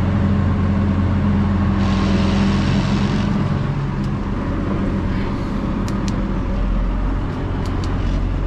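A vehicle engine running steadily at a constant pitch, with a brief hiss about two seconds in.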